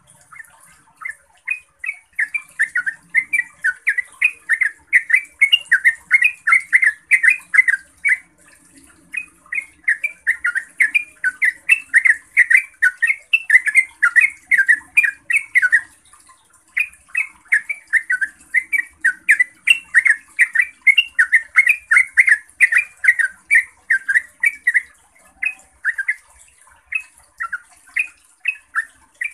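Yellow-vented bulbul (trucukan) singing its long rapid song, about four sharp notes a second, in three long runs broken by short pauses about 8 and 16 seconds in, with looser, scattered notes near the end.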